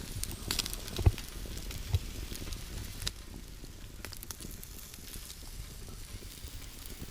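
Campfire crackling, with a sizzle from breakfast cooking over it and a few sharper pops about one and two seconds in.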